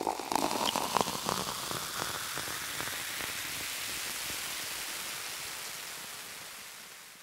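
Water sound effect: a steady rain-like hiss with scattered drip-like clicks in the first second or two. It fades out slowly toward the end.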